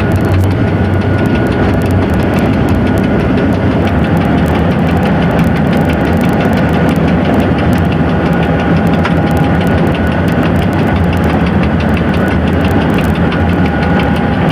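Diesel locomotive engine running steadily: a constant low rumble with faint steady tones over it.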